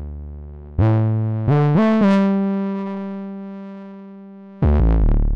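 A deep, fat and rich bass patch from Bitwig's FM4 FM synth, played one note at a time with glide. About a second in, a new note starts and slides up in quick steps to a higher note that is held and slowly fades. Near the end the notes slide quickly back down.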